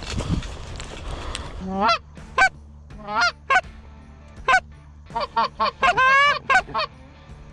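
Goose honks and clucks: about a dozen short calls that each rise in pitch, starting about two seconds in and coming faster near the end. Before them there is a brief rustling of movement.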